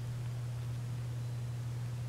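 Hunter ceiling fan running steadily: an even low hum with a faint airy hiss.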